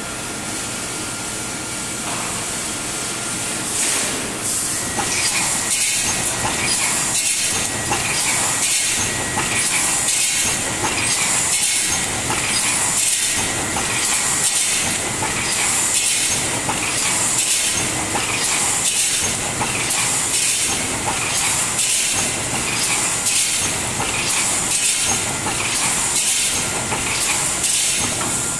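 A 3–6 mm steel wire panel mesh welding machine running. From about four seconds in, its welding cycle knocks regularly about once a second over a steady high hiss.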